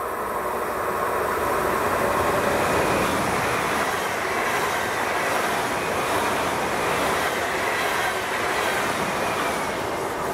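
A train passing, a steady rush of rolling noise that swells over the first couple of seconds and then holds.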